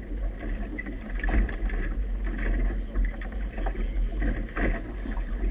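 Wind buffeting the microphone with a constant low rumble, over choppy river water slapping and splashing irregularly against a small boat's hull.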